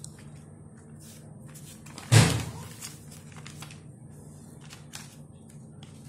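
Paper flaps of a hand-drawn card being opened by hand, with small paper ticks and rustles, and one loud thump about two seconds in.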